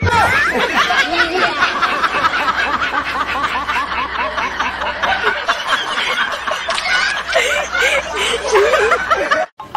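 Prolonged laughter, several voices at once in quick pulsing bursts, cutting off abruptly near the end.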